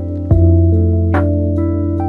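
Lo-fi hip hop beat: mellow sustained chords over a deep bass, with a kick drum about a third of a second in and a snare hit just over a second in.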